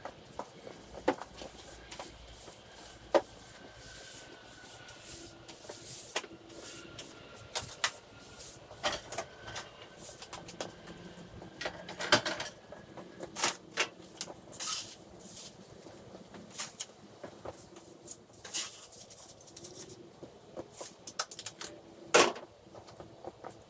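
Irregular knocks and clicks, several a second at times. One sharp knock comes about twelve seconds in, and the loudest comes near the end.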